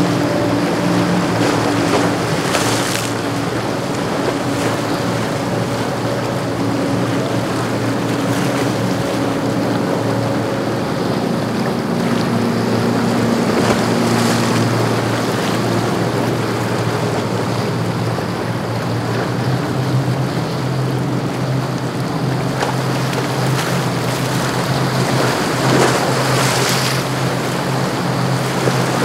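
Motorboat engines running steadily as boats pass, over the constant wash of wake and choppy water, with some wind on the microphone. The engine hum shifts lower about halfway through, and a deeper engine note grows stronger near the end.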